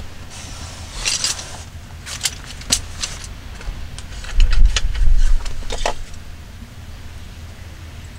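Chopsticks clicking and clattering against a small metal cup and a wooden slatted table as they are picked up and stirred, with a short rustle about a second in. Under it, a low rumble of wind on the microphone, loudest around the middle.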